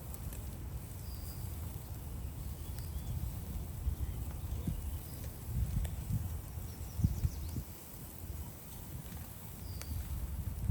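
Outdoor ambience: an uneven low rumble with a few faint, short bird chirps and occasional light ticks.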